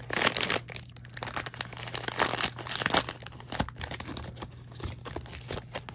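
Blind box packaging being unwrapped by hand: plastic crinkling in irregular crackles and rustles, with some tearing.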